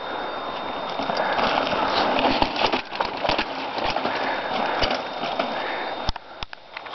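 Mountain bike rattling and clattering over a rocky trail: a dense rattle full of sharp knocks, easing off about six seconds in to a few separate clicks.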